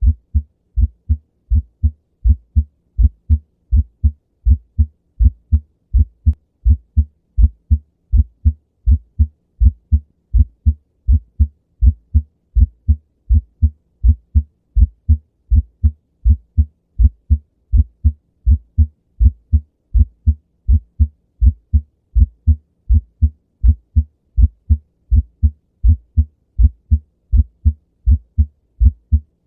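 Human heart sounds: a steady, regular lub-dub rhythm of low-pitched thuds, with the first heart sound (S1) split into two close parts.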